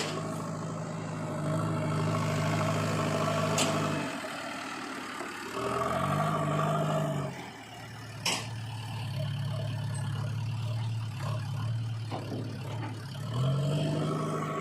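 Heavy diesel engine revving up and easing back in four surges, with a sharp knock about eight seconds in.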